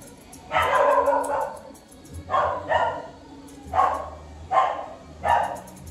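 A dog barking, a series of short barks roughly a second apart, the first one longer.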